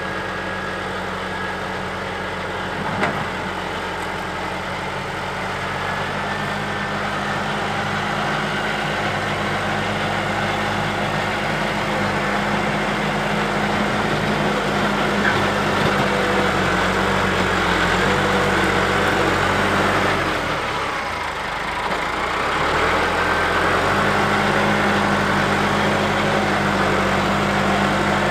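Tractor diesel engine running steadily, with a sharp knock about three seconds in. Around twenty seconds in the engine note drops and quietens briefly, then comes back up to its steady speed.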